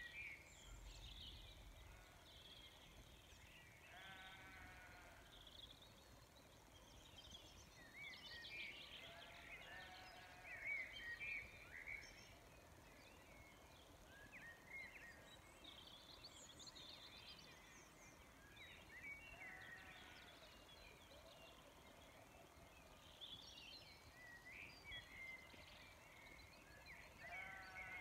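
Faint evening chorus of songbirds, with chirps and trills throughout, and sheep bleating about four times, each bleat lasting about a second.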